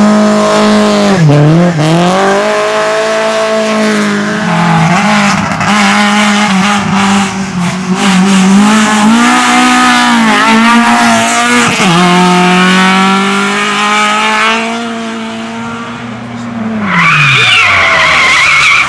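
Rally car running hard on a sprint stage, its engine holding high revs with brief dips as it shifts or lifts, tyres squealing. The engine note drops and fades as the car moves away, and a high wavering sound comes in near the end.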